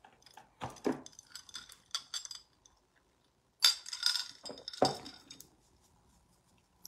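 Small glass cosmetic bottles clinking and knocking together as they are picked up and set down, in a run of short clinks and rattles. The sound cuts out completely for a moment about three seconds in, a dropout from a failing Wi-Fi connection.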